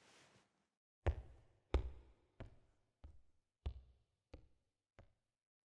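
Footsteps walking away: about eight steps at an even walking pace, growing steadily fainter. A faint hiss stops about half a second in, before the first step.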